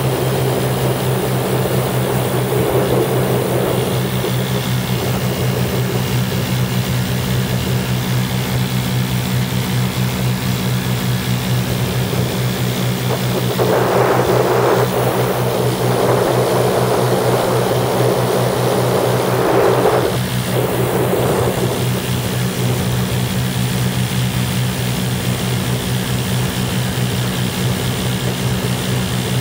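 A Lazair ultralight's twin small engines and propellers running at a steady cruise, an even low drone with rushing air over it. The rushing grows louder for several seconds around the middle.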